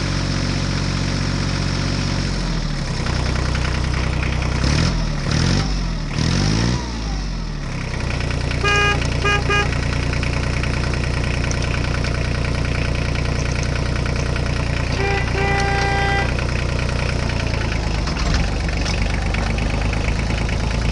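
Electronic toy-vehicle sound effects: a steady engine drone with short horn toots several times, and rising and falling wailing tones about four to seven seconds in.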